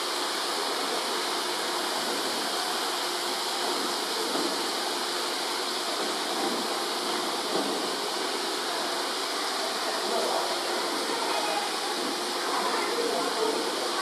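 Waterfall pouring down a rock face and splashing below, a steady, even rush of falling water.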